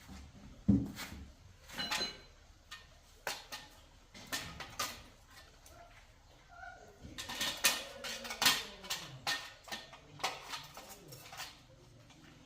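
Metal tools and parts clinking and knocking, an irregular series of sharp taps that comes thickest around seven to nine seconds in.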